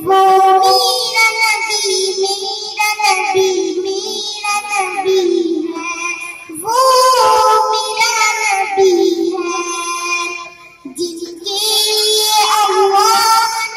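A child singing a naat, a devotional hymn in praise of the Prophet, in long held notes that bend and waver, phrase after phrase with short breaths between.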